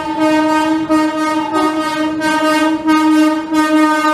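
Electric locomotive's horn held in one long, loud, steady note as a passenger train rolls slowly through a station, with the faint rhythmic clacking of the coaches' wheels underneath.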